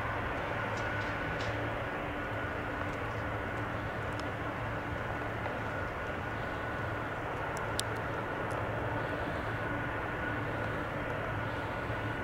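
Airbus A340-300's four CFM56 jet engines at taxi idle as the airliner rolls slowly along the taxiway: a steady high whine over an even rushing drone.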